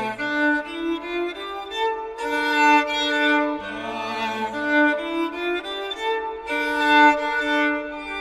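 Violin playing a slow melody of held notes that step from pitch to pitch, with a lower bowed note sounding under it at the start and again about three and a half seconds in.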